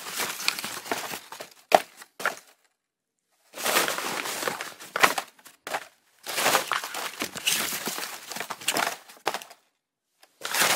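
Hands rummaging through a pile of cardboard boxes and packaging, rustling and crinkling in several bursts with a few sharp snaps and two short pauses.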